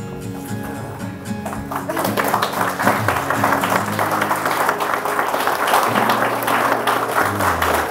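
Soft background music with held notes; about two seconds in, guests break into loud applause that goes on over the music, greeting the couple's first kiss.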